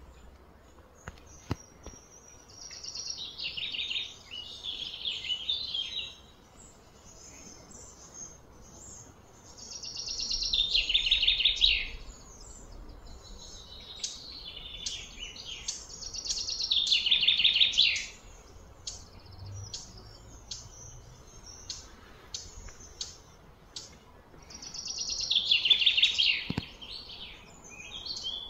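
A songbird singing fast, bright, chattering phrases of about two to three seconds each, repeated several times with quieter gaps in between.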